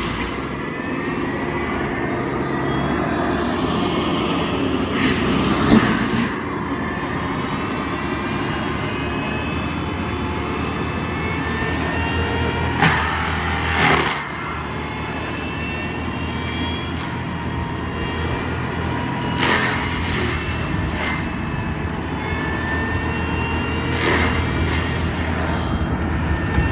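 Stump-mulching machine's engine running steadily under load, with several sharp cracks and knocks as it grinds down tree stumps.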